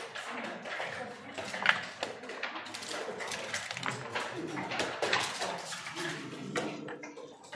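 Backgammon checkers and dice clicking on the board as moves are played, a string of sharp clicks with the loudest about one and a half seconds in.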